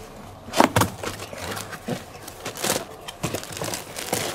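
Cardboard box being opened by hand: a knife slitting the packing tape, then cardboard flaps scraping and the plastic wrapping inside crinkling in irregular rustles. The loudest scrape comes about half a second in.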